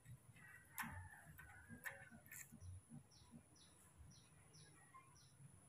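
Faint wet clicks of a newborn baby monkey sucking milk from a feeding bottle. A quick run of about five short, high chirps comes a few seconds in.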